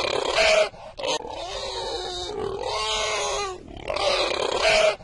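Domestic pig grunting: a long run of quick grunts, then a shorter, louder, higher call. The pattern comes twice.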